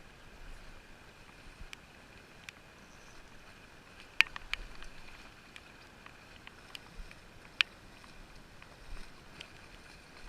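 Faint steady hiss with scattered sharp clicks and taps, the loudest a quick cluster about four seconds in and a single sharp click a few seconds later, all dulled by a watertight camera housing.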